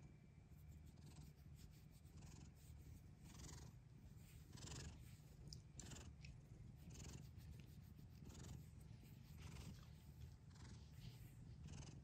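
Domestic cat purring faintly while its head is stroked: a low steady rumble with a soft pulse about once a second.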